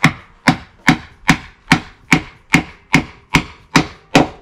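Eleven sharp wooden knocks in a steady rhythm, about two and a half a second: blows driving a wooden leg peg into a drilled hole in a split log to make a stool leg.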